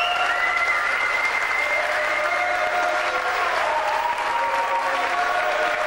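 Large crowd applauding and cheering, a dense steady roar with several long held tones over it.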